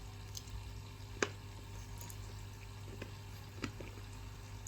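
A few faint, separate clicks and taps over a low steady hum.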